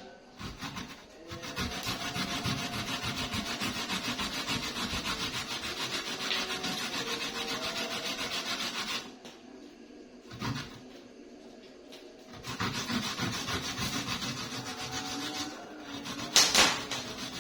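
Kencur (aromatic ginger) rhizome being scraped quickly back and forth across a hand grater, in two long runs with a pause of about three seconds between them. There is a knock during the pause and a louder, sharper knock near the end.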